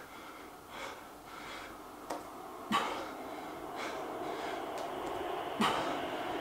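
A man breathing hard through push-ups near the end of a set of 100, with short forceful breaths out about once a repetition; twice the breath out comes with a short grunt. The effort of a tired body late in the set. A faint steady hum comes up in the background about two-thirds of the way through.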